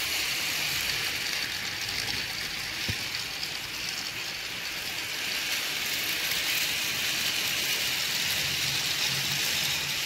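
A long string of plastic toy train wagons rolling past on plastic track behind a Rail King toy locomotive: a steady rattling clatter of many small wheels, with one light click about three seconds in.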